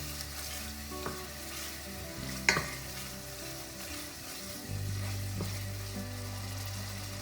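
Food sizzling in a frying pan while being stirred, with a utensil clinking sharply against the pan about two and a half seconds in.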